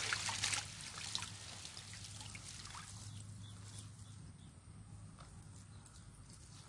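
Water splashing and dripping off a mesh fish trap being lifted and shaken in a flooded paddy, loudest in the first half-second, then a faint trickle. A steady low hum runs underneath.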